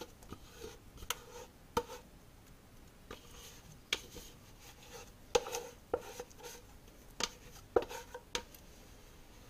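Plastic bowl scraper scraping banana bread batter out of a mixing bowl into a baking pan: soft wet scrapes broken by irregular taps and knocks of the scraper and bowl, a few louder ones with a brief ring of the bowl.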